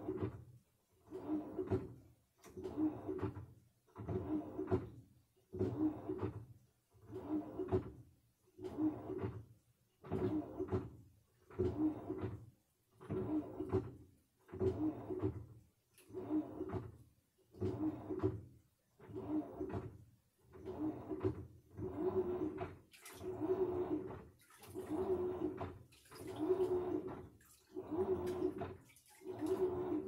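Samsung washing machine mid-wash: water and laundry sloshing in a regular rhythm, one swish about every second and a half.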